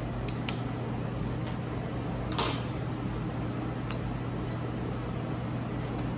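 Small metallic clicks and one brief clatter about two and a half seconds in, as breaker points and a condenser are fitted into a tractor distributor by hand with needle-nose pliers. A steady low hum runs underneath.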